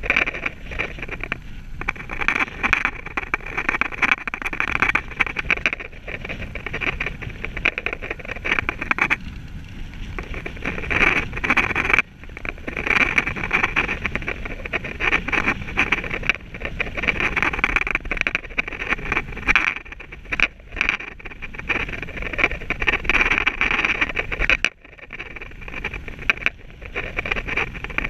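Road bike rolling along a tarmac path: a continuous rush of tyre and riding noise with wind on the microphone. It drops away briefly a few times, about ten seconds in, at twelve seconds and near the end.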